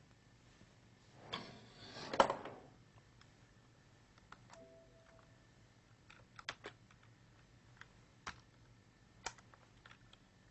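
Scattered computer mouse and keyboard clicks while a PowerPoint slideshow is being closed on a PC. About two seconds in, a brief rustle ends in a sharp knock, the loudest sound, and a faint short tone comes a little later.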